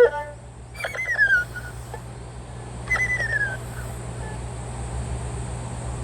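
Erhu imitating bird calls: two high sliding notes that fall in pitch, about a second in and again about three seconds in.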